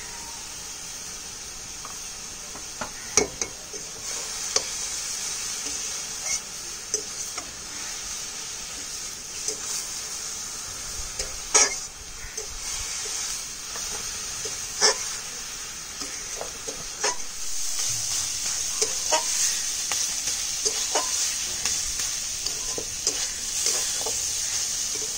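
Young leafy greens (chhechi shak) sizzling in oil in a kadai as they cook down, with a steady hiss. A spatula stirs and scrapes them, knocking against the pan now and then, hardest about three, twelve and fifteen seconds in.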